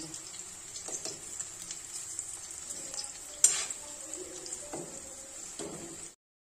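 Spring onion and gram-flour batter sizzling in hot oil in a steel kadhai on low flame, with a slotted spoon stirring and lightly clinking against the pan. One sharp clink of the spoon on the kadhai about three and a half seconds in; the sound cuts off suddenly about six seconds in.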